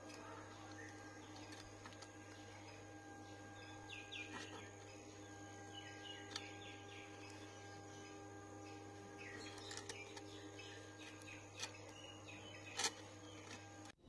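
Faint steady hum, with a few faint bird chirps in the background, two brief clusters of them. Near the end come a couple of small sharp clicks from the speaker wires being handled and connected.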